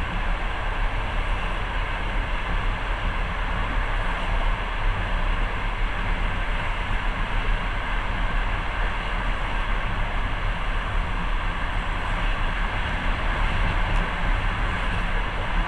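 Steady running noise of a passenger train in motion: an even rumble and rush of wheels and carriage, heard from inside the car.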